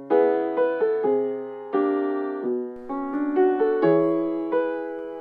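Instrumental intro of a hip-hop beat: a piano-like keyboard plays a slow run of chords, each struck and left to fade, with no drums.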